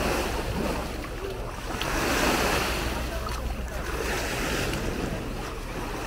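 Small sea waves washing and breaking on a sandy shore, swelling about two seconds in, with wind rumbling on the microphone.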